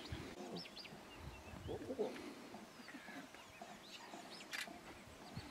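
Wild birds chirping and calling, with short, low clucking calls near the start and about two seconds in.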